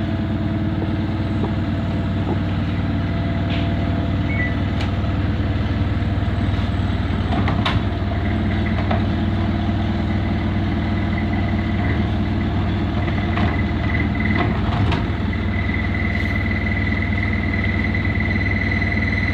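Samsung digital inverter washing machine spinning empty at high speed, set to 1200 RPM, with a steady motor hum. A high steady whine comes in about halfway through and grows louder near the end, with a few scattered clicks. The owner questions this whine as a bad spin sound.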